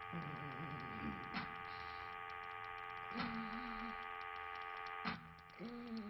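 Machine ambience: a steady hum with a sharp click about every two seconds, and short low wavering and droning tones in between.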